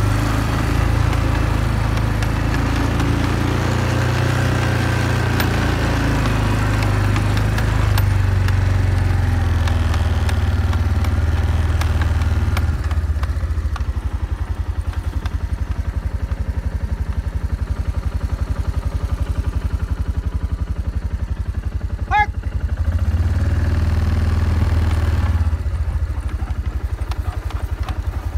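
ATV engine running, busier and louder for the first half, then dropping to an even idle pulse. The revs pick up for a few seconds near the end before settling back to idle.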